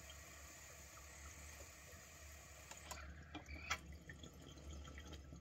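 Water bubbling steadily through a glass bong's percolators as one long hit is drawn through a FlowerPot vaporizer. A few sharp clicks come about three seconds in, as the metal vaporizer head is handled.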